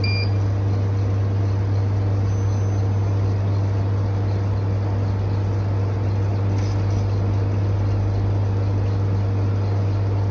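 Soft-serve ice cream machine running in freeze mode while dispensing, its compressor and motor giving a steady low hum.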